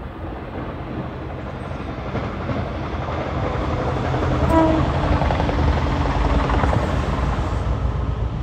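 Locomotive passing on the main line, its engine and wheels rumbling louder as it draws closer, with a short blast on its horn about halfway through.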